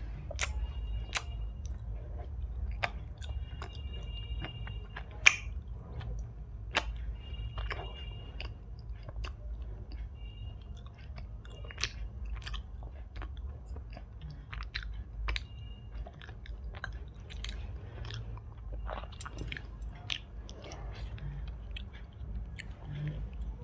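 Close-miked chewing of Indian sweets, with many short, sharp mouth clicks; the loudest click comes about five seconds in. A steady low hum runs underneath.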